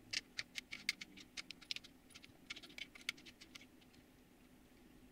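Quick, light clicks and ticks of a hand tool working the screws out of a desktop CNC mill's spindle mount, with small metal parts being handled. The clicking is busiest in the first three and a half seconds and then thins out.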